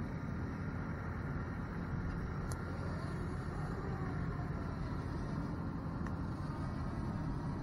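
Farm tractor engine running, a steady low rumble.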